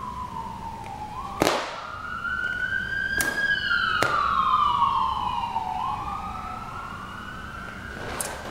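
Emergency vehicle siren in slow wail mode, its pitch sliding down and back up about every four to five seconds, with a few sharp clicks, the loudest about one and a half seconds in.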